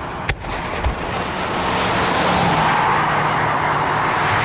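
Steady rushing road noise from passing traffic, with a faint engine tone under it, swelling about two seconds in. A single sharp pop sounds just after the start.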